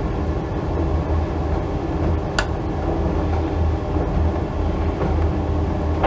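A steady low rumble with a faint constant hum throughout, like a running kitchen appliance or fan. About two and a half seconds in, a metal spoon clicks once against the pot as filling is scooped.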